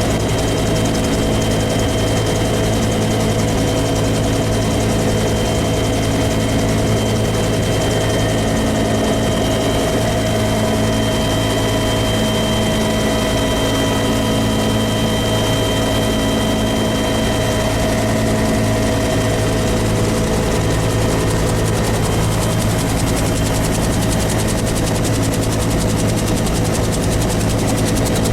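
Helicopter running steadily at close range, a constant engine and rotor noise with a high steady whine over it.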